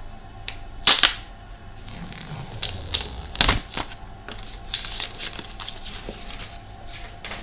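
Thin plastic wrap being peeled off a phone box and crumpled: sharp crackling snaps, the loudest about a second in and several more around three seconds in, then a softer rustling crinkle as the film comes away in the hand.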